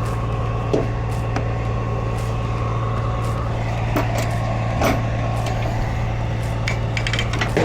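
Semi truck's diesel engine idling steadily, a constant low hum, with a few scattered clicks and taps.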